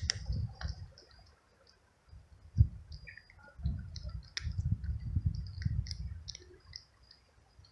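Tabby kitten crunching dry kibble, a string of sharp clicking chews. Wind buffets the microphone in gusts, easing for a lull about a second in.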